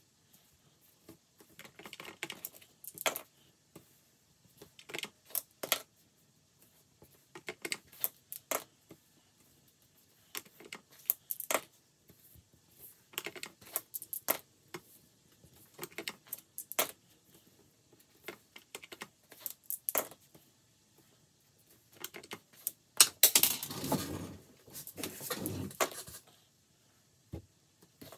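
Dice clattering into a padded leather dice tray, between stretches of a marker scribbling on paper and taps on calculator keys, played fast-forward; a louder burst of rattling and scratching comes near the end.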